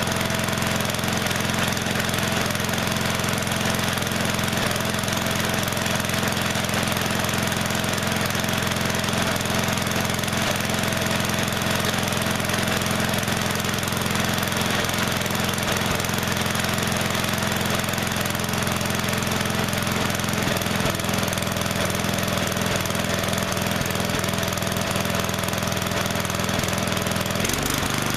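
Craftsman LT1000 riding mower engine running steadily while the mower stands still, test-run on fresh oil after the old oil was found thinned with gasoline. The owner suspects a sticking carburetor float. Near the end its note shifts.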